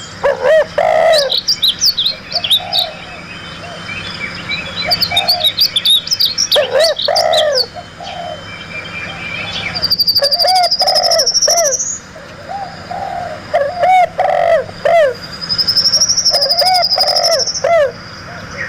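Several wild birds calling over one another: repeated low arching calls, clusters of short high chirps, and a long high trill about ten seconds in and again near the end.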